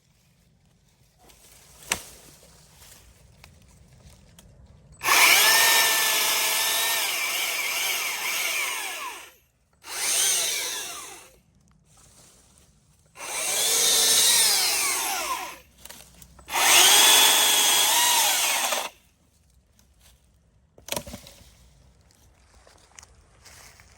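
Stihl MSA 300 cordless battery chainsaw run in four bursts of a few seconds each, its electric motor whine sagging in pitch as the chain cuts into wood, with quiet pauses between cuts. A sharp knock comes about two seconds in.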